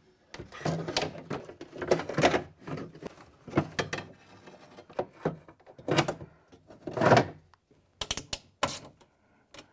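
Irregular knocks and clunks of a replacement window regulator and motor being worked into a pickup truck's door, with a quick run of sharp clicks near the end.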